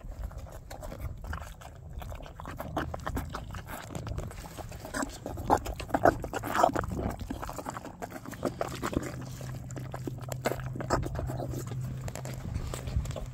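A seven-month-old filly, half Arabian and half Tennessee Walker, slurping and chewing wet mash from a feed tub: a run of irregular wet smacks and lip-slaps, loudest and densest about halfway through.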